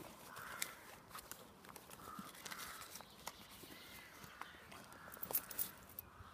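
Faint rustling and scattered clicks of handling as a bag is rummaged to get a phone out. A bird calls faintly a few times in the background.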